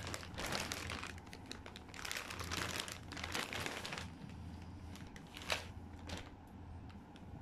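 Clear plastic packaging bag crinkling and rustling as a football jersey is unwrapped, dying down about four seconds in, with a sharp click a little later.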